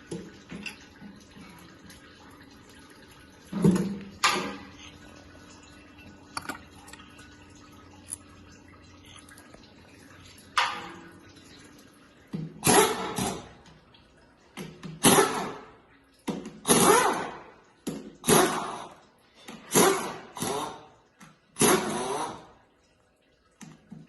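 Workshop sounds of an automatic transmission being taken apart: a few knocks of parts in the first half, then a run of about eight short, loud splashing or hissing bursts roughly every second and a half.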